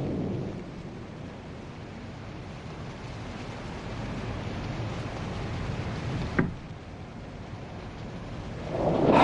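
Storm: steady rain and wind with thunder, a rumble fading in the first second, a short sharp crack about six seconds in, and a loud rumble of thunder building near the end.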